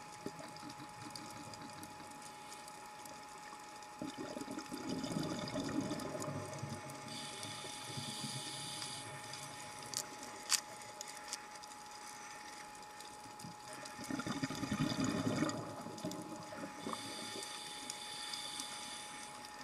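Scuba diver's breathing heard underwater: two bubbling exhalations through the regulator, about four and fourteen seconds in, each followed a few seconds later by a hissing inhalation. A thin steady tone runs underneath, with a couple of sharp clicks midway.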